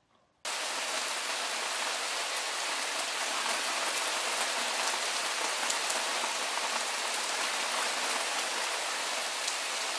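Steady rain falling, a dense even hiss flecked with fine drop ticks, starting abruptly about half a second in.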